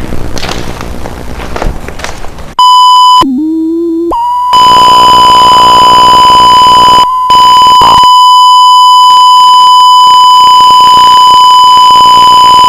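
A noisy, crackling rumble for the first couple of seconds, then a loud, steady, high-pitched test tone of the kind broadcast over television color bars. Just after the tone starts it gives way for about a second to a quieter, lower, wavering tone, then returns, and it cuts out briefly once more about seven seconds in.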